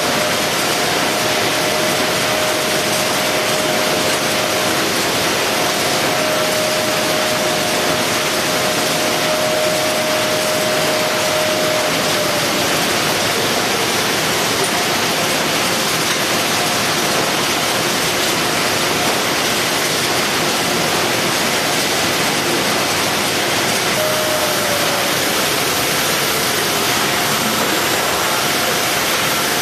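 Steady loud hiss of running factory machinery around a Fuji box-palletizing robot, with faint motor whines that hold a pitch and twice fall away.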